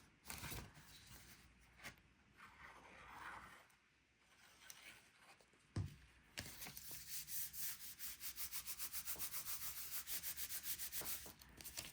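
Cardstock paper being handled and folded, then a fold being creased by rubbing back and forth along it, about five strokes a second for several seconds. A sharp tap comes about six seconds in.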